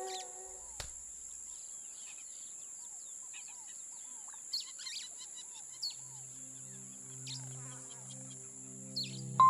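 Field ambience: a steady high-pitched insect drone with scattered short bird chirps. A soft, low held music chord fades in about two-thirds of the way through.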